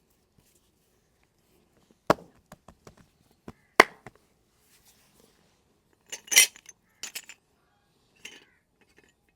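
Joint cracks during a head, neck and back massage: two loud single cracks about two and four seconds in, with softer clicks between them. Later comes a quick run of brighter, hissier hits of hands on the body, then one small click near the end.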